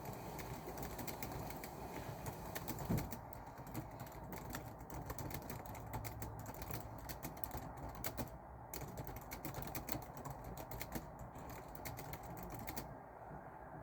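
Typing on a computer keyboard: fast, irregular runs of key clicks with a couple of short pauses, and one low thump about three seconds in.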